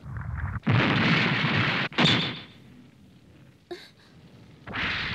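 Action sound effects for an animated film. A loud rushing blast of noise lasts about a second and stops abruptly. A short crash follows that rings briefly and dies away. Near the end another loud rushing noise starts.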